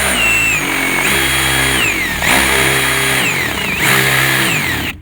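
Van engine being revved three times: the pitch climbs, holds briefly at a higher speed, then drops back toward idle, with a high whine that rises and falls along with it. The sound cuts off abruptly near the end.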